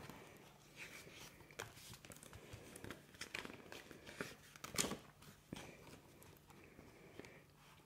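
Paper pages of a softcover picture book being opened and turned by hand: faint, intermittent rustling and crinkling of the paper, with a few louder rustles midway.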